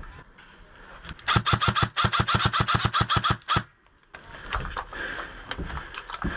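ICS PAR MKIII electric airsoft rifle firing a rapid string of about twenty shots, roughly nine a second, with the gearbox motor whirring under each shot, for about two seconds starting just over a second in.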